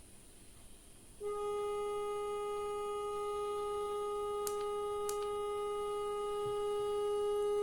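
A steady, single-pitched electronic test tone played through a speaker, switching on abruptly about a second in and holding at one pitch with a buzzy edge. Two faint clicks sound in the middle.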